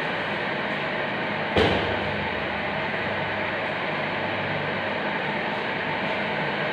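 Steady room noise with a single sharp knock about a second and a half in.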